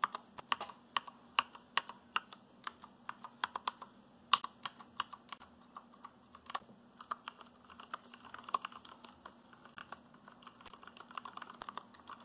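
Typing on a Durgod Taurus K320 tenkeyless mechanical keyboard with Cherry MX Brown switches and PBT keycaps. The keystrokes come irregularly, a few a second, and grow quicker about two-thirds of the way in and again near the end.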